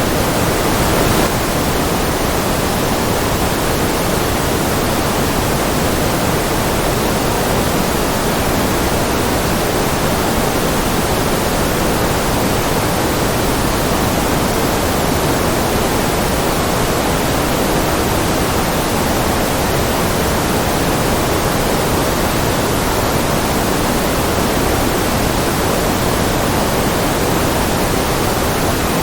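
Continuous white noise: a steady, unchanging hiss with no events, its weight lying more in the low and middle range than in the highs.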